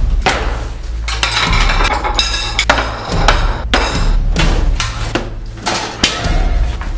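Bass-heavy music with a run of sharp, irregularly spaced knocks and bangs over it.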